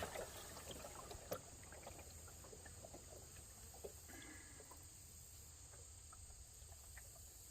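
Near silence: faint outdoor ambience with a low rumble and a few small ticks.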